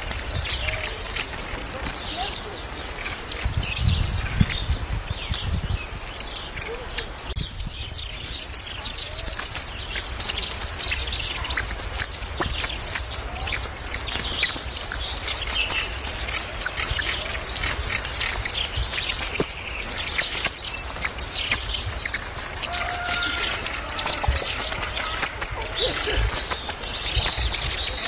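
Red-necked tanager (saíra-militar) singing: a continuous stream of rapid, very high-pitched notes.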